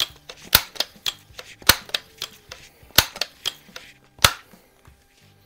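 Crosman Model 140 .22 multi-pump air rifle being pumped up: four sharp clacks of the forearm pump lever, about a second and a quarter apart, with lighter clicks between them.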